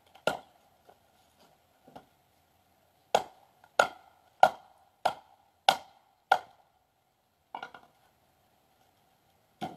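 Axe chopping kindling from a softer wood on a chopping block: sharp, sudden wooden chops. A quick run of six strikes comes about two-thirds of a second apart in the middle, with a few scattered chops before and after.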